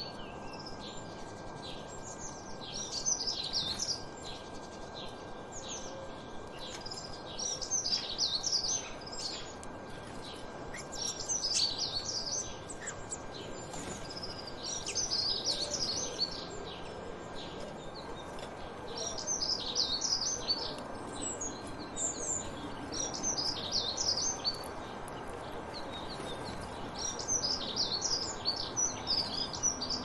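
Small songbirds singing and chirping: short, high twittering phrases repeated every couple of seconds over a steady background hiss.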